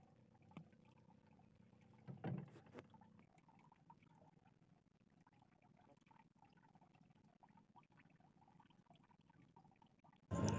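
Near silence: faint low background noise, with a brief soft knock about two seconds in and a few tiny clicks. A voice cuts in sharply at the very end.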